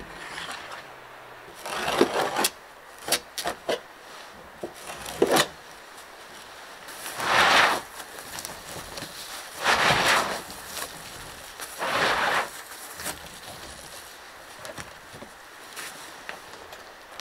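A roll of black sheet membrane being pushed open and slid over plank floorboards, in four bursts of about a second each, with a few sharp knocks between the first two.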